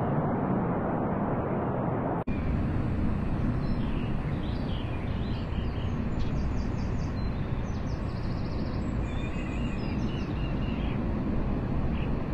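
Steady low rumble and rush of the Antonov An-225's six jet engines as the heavy cargo plane flies its approach, cutting out for an instant about two seconds in. From a few seconds in, birds chirp faintly over it.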